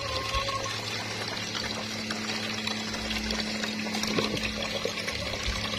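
A thin stream of water pouring steadily into a plastic tub of water, splashing on the surface, over a steady low hum.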